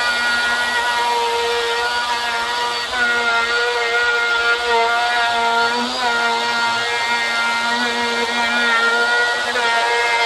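Ryobi router running as it is passed across an edge-grain cutting board in a flattening sled, surfacing the wood. A steady motor whine with small shifts in pitch as the bit takes load.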